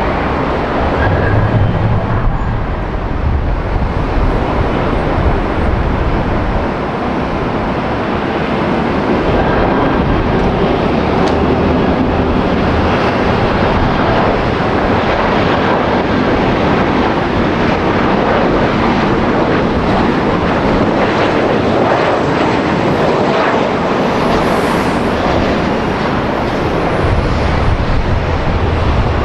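Jet airliner engines running loud and steady, a dense noise spread over a wide range of pitches. Low wind rumble on the microphone can be heard near the start and again near the end.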